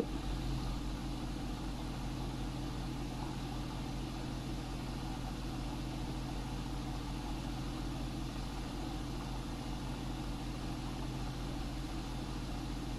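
Steady low electrical or mechanical hum with an even buzz, unchanging throughout, with no other distinct events.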